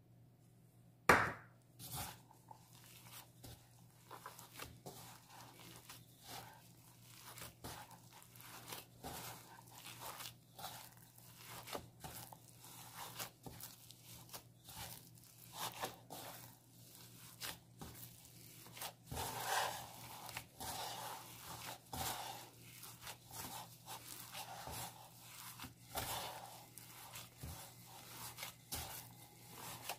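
Hands in plastic gloves rubbing and squeezing crumbly pie dough of flour, butter and egg in a ceramic bowl: irregular rustling, crunching and squishing strokes, with a sharp knock about a second in. A faint steady hum runs underneath.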